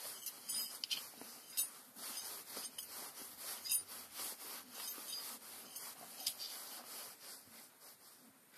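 Scattered light metallic clicks and clinks with rubbing from hands handling a Massey Ferguson Multi Power transmission input shaft, with its bearing and gear, on a rag. A few sharper clicks stand out among the smaller ones.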